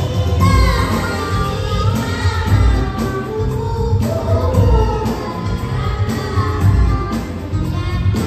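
A female voice singing a melody over amplified music with a heavy bass.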